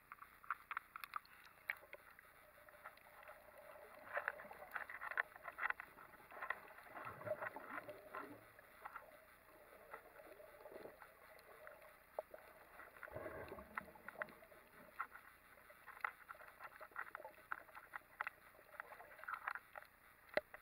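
Faint underwater sound picked up through a submerged camera: scattered short clicks and crackles over a low hiss, with a couple of muffled low water swells.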